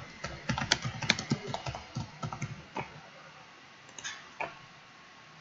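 Typing on a computer keyboard: a quick run of keystrokes over the first three seconds or so, then a few single clicks a little after four seconds.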